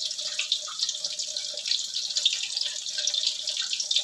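Battered cempedak pieces deep-frying in hot oil in a wok: a steady crackling sizzle of many small pops.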